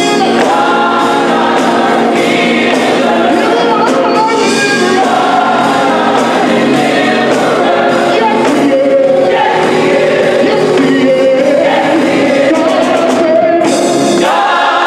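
Gospel choir singing, backed by a live band.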